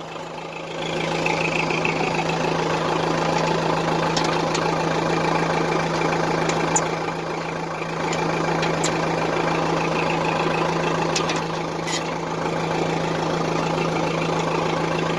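Case 480 backhoe engine idling steadily, running on its own now that its corroded battery terminals have been cleaned. A few light clicks sound over it.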